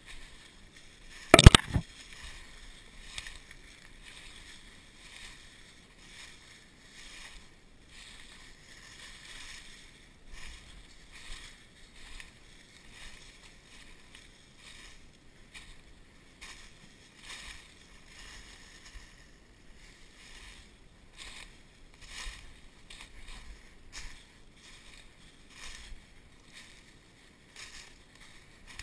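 Footsteps crunching and brushing through dry leaves and low brush, in a steady uneven rhythm. About a second and a half in, one sharp, very loud crack, the loudest sound here.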